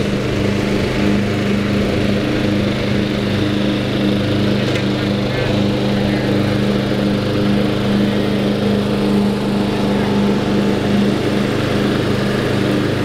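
Riding lawn mower's engine running at a steady, unchanging drone while it is driven across the lawn.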